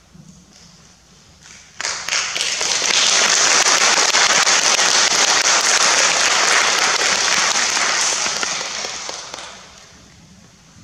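Audience applauding, starting suddenly about two seconds in and fading away near the end.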